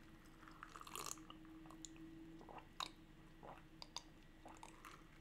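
Near silence with faint mouth sounds of drinking from a mug: small sips, swallows and clicks, over a faint steady hum.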